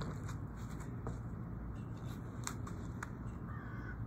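Faint crackling fizz of elephant toothpaste foam, hydrogen peroxide decomposing with yeast and soap, as it surges up out of a plastic water bottle. A few light clicks come through at times.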